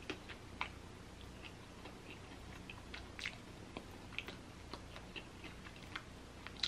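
Close-miked eating of fried chicken: faint, irregular wet clicks and smacks of chewing and of fingers tearing meat from a drumstick bone.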